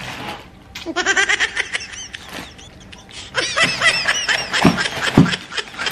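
Laughter in quick repeated bursts, twice: a short run about a second in and a longer, higher-pitched run from about three and a half seconds in. Two low thumps come near the end.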